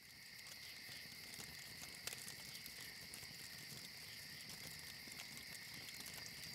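Crickets singing steadily, with scattered faint pops and crackles from a wood fire and one louder pop about two seconds in.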